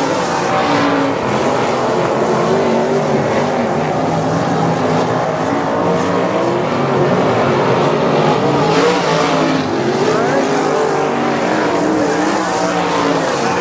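A field of 305 winged sprint cars with small-block V8 engines racing, several engines running hard at once. Their pitch rises and falls as they accelerate and lift through the corners.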